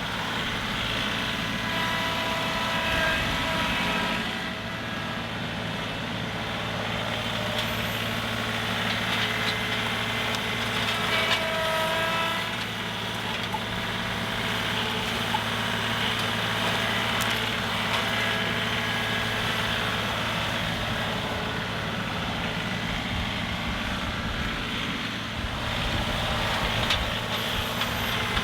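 John Deere 2038R compact tractor's diesel engine running steadily, with brief higher whining tones that come and go, clearest about eleven seconds in.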